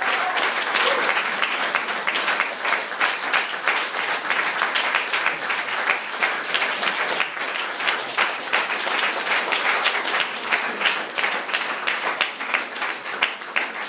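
A small audience applauding: many hands clapping together without letup.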